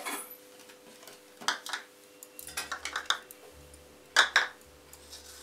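Small bowls being picked up and set down on a stone kitchen countertop: a scattered series of short clinks and knocks, the loudest pair about four seconds in.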